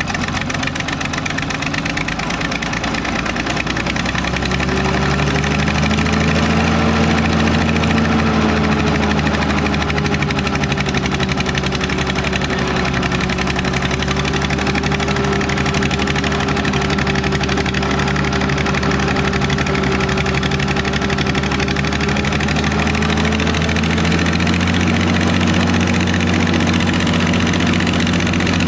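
Fiat-Allis 14B crawler dozer's diesel engine running loud and steady, freshly started after four years standing; about four seconds in it picks up speed a little and then holds an even note.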